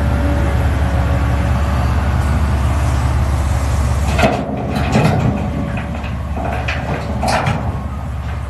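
Heavy diesel engine of a wheel loader running with a steady low hum. From about halfway, rock is dumped from the loader bucket into a haul truck's bed, giving several knocks and clatters.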